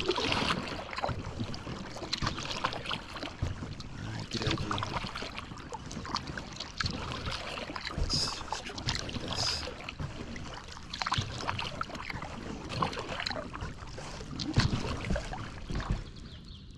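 Paddle strokes splashing and dripping in calm lake water beside an inflatable packraft, in an uneven run of small splashes. The splashing dies down just before the end.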